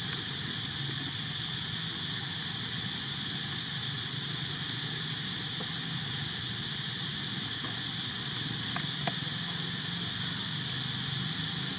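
Steady, even high-pitched drone of insects over a low hum, with two faint clicks about nine seconds in.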